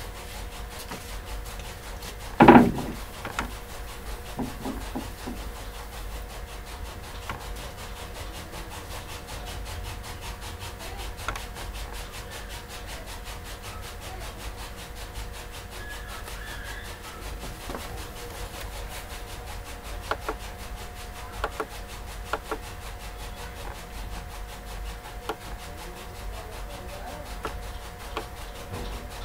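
Whiteboard being wiped clean with a duster: soft rubbing, with one sharp knock about two and a half seconds in and a few faint taps later, over a faint steady hum.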